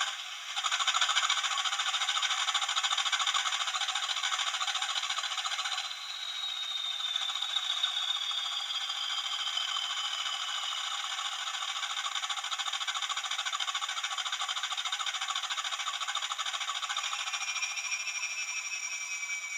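A Hornby TTS sound decoder plays a Class 20 diesel engine running, heard through the model's tiny speaker: a thin, rattly engine sound with no low end. About six seconds in, a high whine comes in and falls slowly in pitch, and near the end a second, lower whine also falls.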